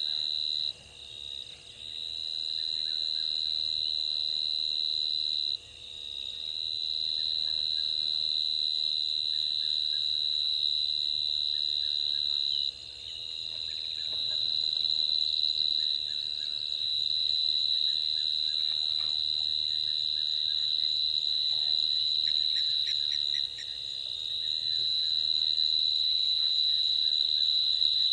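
A loud insect calling: a shrill, steady high-pitched trill that cuts out four times and builds back up each time.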